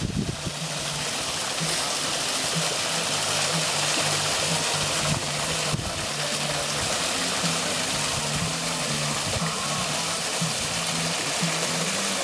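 Water falling and splashing steadily down a decorative stone waterfall, with a low hum underneath.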